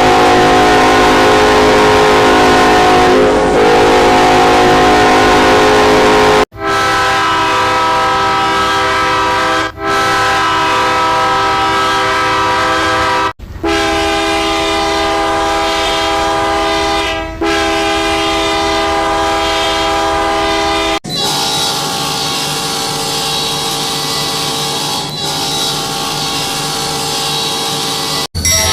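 Train air horns test-sounded in long steady blasts, each horn sounding several tones at once. About four different horns follow one another, each lasting some seven seconds and cutting off sharply when the next begins, some with a brief break partway through.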